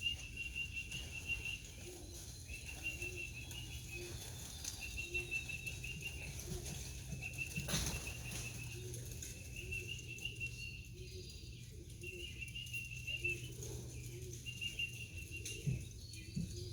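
Pigeons' wings flapping as the flock is called in to the loft, over a high wavering trill that repeats about every second and a half. There is one sharper clatter about eight seconds in.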